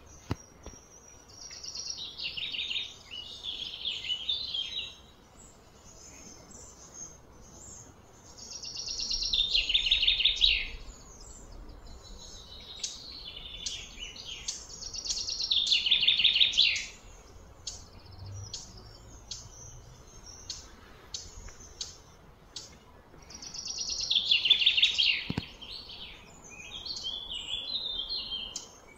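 A songbird singing four loud phrases of fast repeated notes that slide downward in pitch, each lasting two to three seconds, with short chirps between them.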